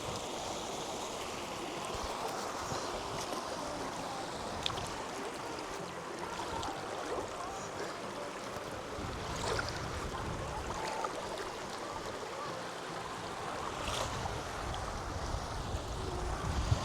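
Steady rush of river water flowing over rocks, with a few faint knocks.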